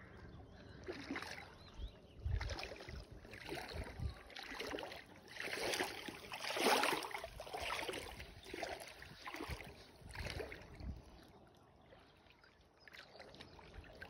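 Feet wading through shallow lake water, a sloshing splash about once a second, loudest midway and dying down near the end.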